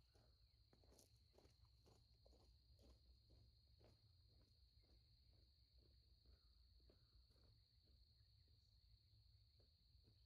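Faint footsteps crunching on gravel, about two steps a second, which die away a couple of seconds before the end. Under them is a steady, high, unbroken drone of insects.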